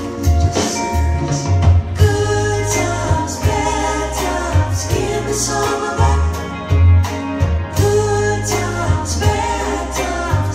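Recorded music with singing played through BIC Venturi V62 bookshelf speakers driven by a push-pull EL84 valve amplifier, with a strong, changing bass line and regular drum hits.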